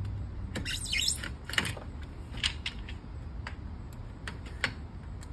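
Utility knife blade cutting old caulk along an aluminum storm-door Z-bar: scattered scrapes and sharp clicks of the blade against the metal, with a short squeak about a second in.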